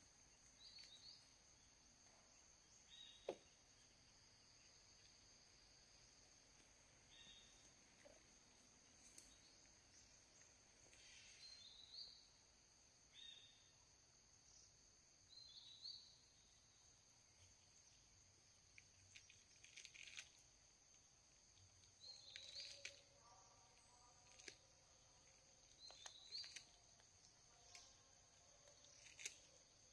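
Faint forest ambience: a steady high insect drone, with a short high bird call repeating every few seconds and a few faint clicks. A lower call comes in about two-thirds of the way through.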